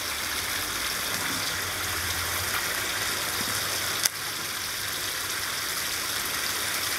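Steady rush of flowing water along a concrete channel, with one sharp click about four seconds in.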